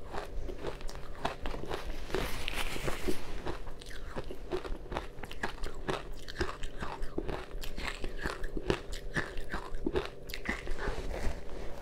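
Powdery ice coated in matcha green tea powder being bitten and chewed close to the microphone: a continuous run of small, crisp crunches, several a second.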